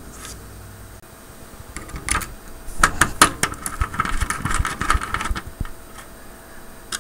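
Screwdriver driving a screw through the power inverter board's ground lug into a metal standoff: a run of sharp metallic clicks and scraping as the screw turns, starting about two seconds in and easing off after about five seconds.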